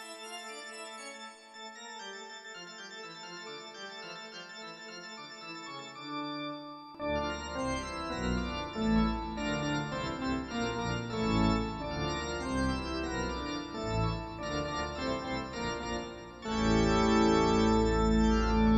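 Roland D-50 digital synthesizer played live in sustained chords, soft at first with no bass. About seven seconds in, bass notes come in and the playing gets louder and busier. Near the end it swells into a loud, held chord over a deep bass.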